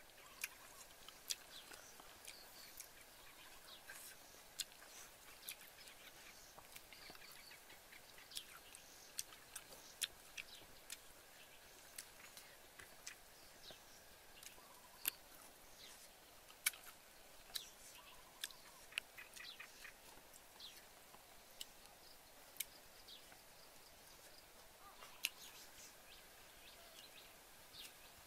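Quiet outdoor background with faint bird chirps and scattered sharp clicks and crackles every second or so.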